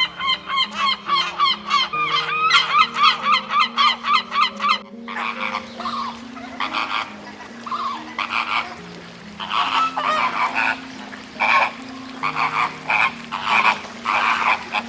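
Geese honking in rapid repeated calls for about the first five seconds. After a sudden cut, a different animal makes short calls in irregular bursts.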